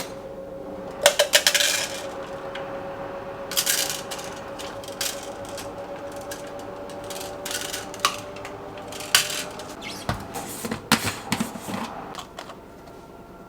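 Kitchen clatter of a protein shake being made: a series of sharp clinks, taps and knocks of a spoon, containers and lids, with a faint steady hum underneath that stops about three-quarters of the way through.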